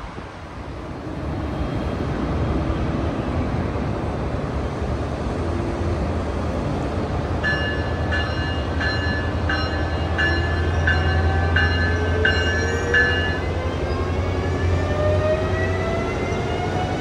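Passenger train running close by: a low rumble builds, a bell rings repeatedly, a little under twice a second, for about six seconds in the middle, and then a whine rises steadily in pitch as the train speeds up.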